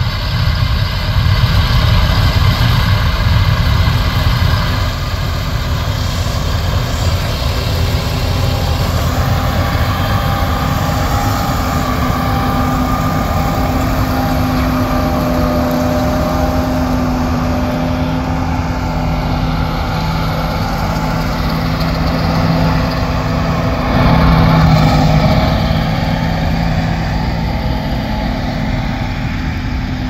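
John Deere S680 combine running while harvesting corn: a steady diesel engine drone with the whir of its threshing machinery. A steady hum joins about a third of the way through and swells briefly near the end.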